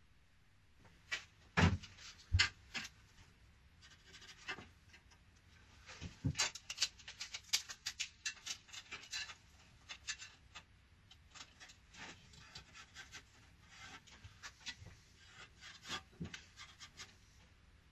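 Gloved hands and a tape measure knocking, tapping and rubbing against a car's bare sheet-steel floor and subframe: two sharp knocks near the start, then a run of short taps and scrapes.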